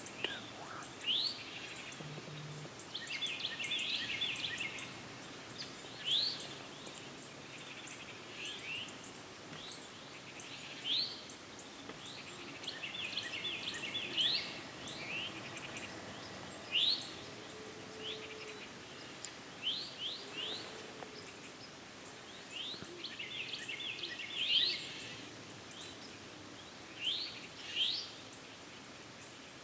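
Songbirds calling and singing: repeated short, quickly rising whistled notes and bursts of twittering chatter over a faint steady outdoor hiss.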